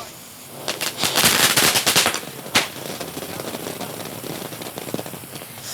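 Small novelty ground firework (a toy 'tank') going off with rapid crackling pops like a machine gun, densest about a second in, one sharp crack a little later, then a quieter steady crackle.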